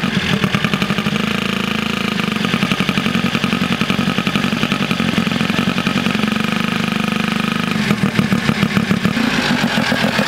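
Turbocharged rotary engine of an ATV running steadily with a pulsing exhaust beat, its note changing about eight seconds in.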